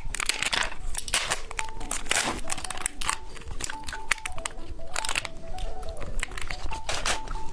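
Plastic candy wrapper crinkling in quick crackly bursts, with a soft cheese-stick candy being bitten and chewed close to the microphone. A simple background melody plays under it.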